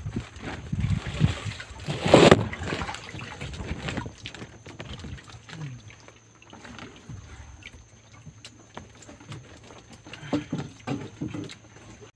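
A camera tipping over and knocking against the boat under a tarp shelter: one loud clattering knock about two seconds in, then scattered light knocks and faint water sloshing.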